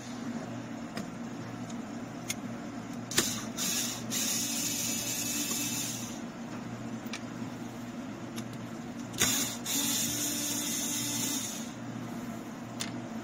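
Cordless electric screwdriver running twice on the screws of the dash-top storage bin, each run starting with a click and lasting about three seconds, then two and a half; a steady low hum underneath.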